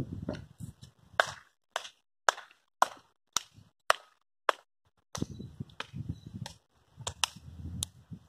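Hand claps in a steady rhythm, about two a second, seven in a row, followed by a few looser claps near the end, over a low rumble of wind on the microphone.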